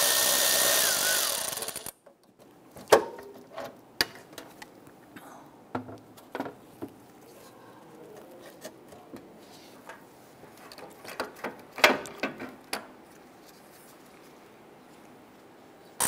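Milwaukee cordless ratchet running at speed, a steady whine over a hiss, spinning off a headlamp mounting nut; it slows and stops about two seconds in. After that, scattered light clicks and metal knocks as the parts are handled.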